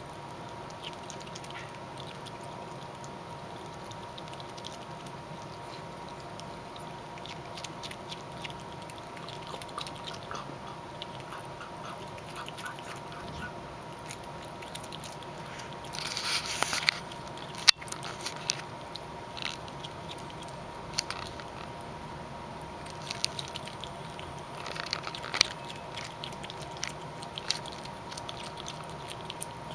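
A small animal chewing and nibbling food, with scattered small crunching clicks. A louder rustle comes about 16 seconds in, followed by a sharp click, all over a faint steady hum.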